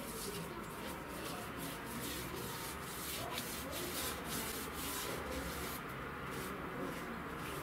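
Paintbrush strokes rubbing wood stain onto a wooden window frame: a steady scrubbing hiss made of repeated strokes, about two to three a second.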